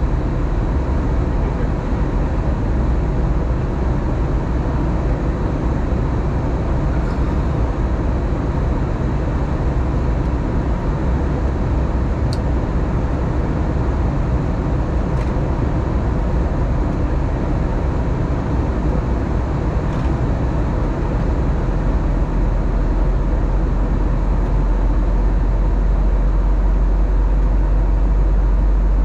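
Steady cabin noise of an Airbus A321neo in flight: a constant rush of airflow and engine drone. A deep rumble grows louder over the last few seconds.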